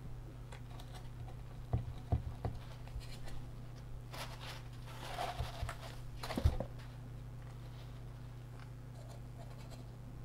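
Gloved hands handling a dismantled electrolytic capacitor's aluminium can and wound foil roll: a few soft knocks about two seconds in, rustling and scraping around four to five seconds, and a sharper knock at about six and a half seconds, over a steady low hum.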